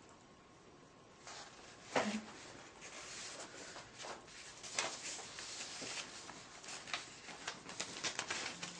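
Faint handling noise in a quiet room: scattered rustles and small clicks, like papers or objects being moved, with one sharper knock about two seconds in.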